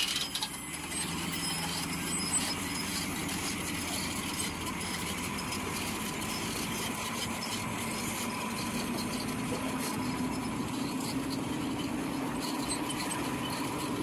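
Heavy diesel engines of a crawler bulldozer and a truck running steadily under load while the dozer tows the loaded truck. The low engine note rises slightly in the second half.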